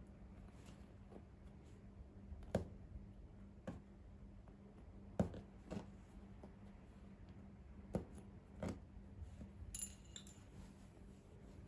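Faint, scattered light clicks and knocks, about a dozen spread unevenly, over a low steady hum.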